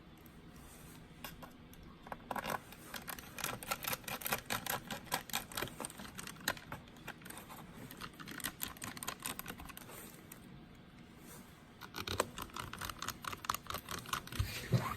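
Rapid light clicks and taps in two runs, the second starting near the end, typical of hands working on a laptop.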